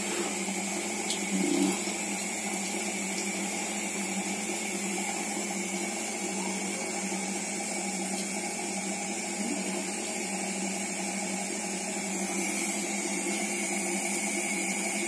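Reverse-osmosis purifier's booster pump running with a steady hum.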